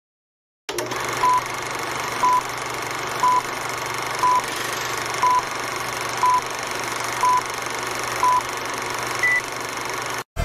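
Old-film countdown leader sound effect: a steady film hiss with a short beep once a second, eight times, then one higher-pitched beep near the end.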